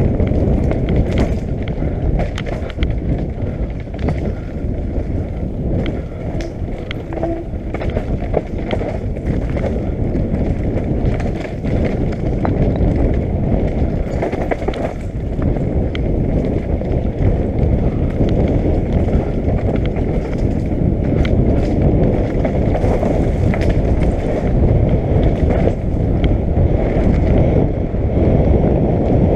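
Downhill mountain bike ridden fast over rocks and gravel, heard from a helmet camera: heavy wind noise on the microphone with constant rattling and knocking from the tyres, rims and chain over the rough trail. The rims can be heard striking rocks.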